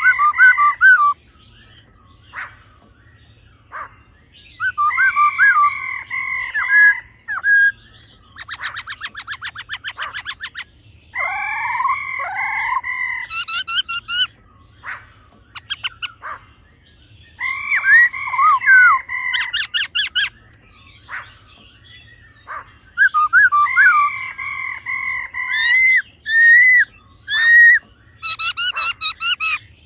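Black-throated laughingthrushes calling: a male's loud whistled song phrases every few seconds, alternating with the female's fast rattling 'ro' calls.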